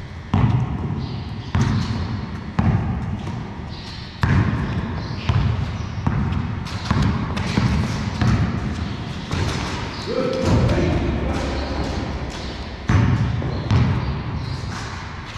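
Basketball being dribbled on a concrete floor, bouncing about once a second, each bounce echoing in a large hall.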